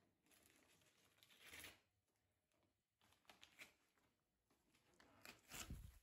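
Very faint rustling and crinkling of paper wrapping, in short scratchy bursts, with a louder thump near the end.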